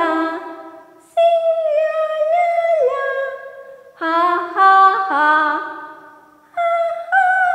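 A woman singing unaccompanied in long held 'la la' notes, as an echo song for children. There are three phrases, the middle one lower in pitch than the other two.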